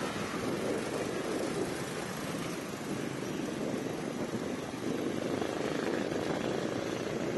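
Steady outdoor rush of wind and surf, with small motorbikes passing on the road; the noise swells near the start and again about five seconds in.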